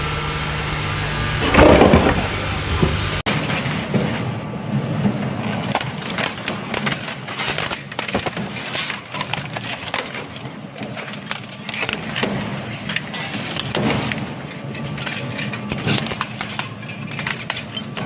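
Heavy crushing machine breaking up material: dense, irregular cracking and splintering with knocks. In the first three seconds a machine engine is running, with one loud crash about two seconds in.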